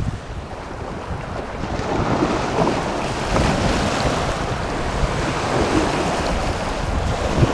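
Sea surf washing along with wind blowing across the microphone: a steady rushing noise that grows louder about two seconds in.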